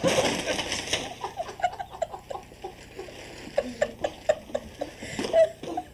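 A person falls to the floor with a clatter and thump in the first second, followed by repeated short bursts of laughter that grow louder near the end.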